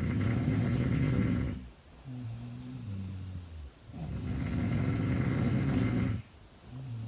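A sleeping young woman snoring: two loud, rough snores about four seconds apart, each lasting about two seconds, with a quieter, lower, wavering breath between them.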